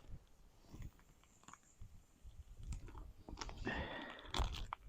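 Faint crinkling and clicking of a stiff plastic hot-link package being worked open by hand, with a short rasp and a few louder clicks near the end.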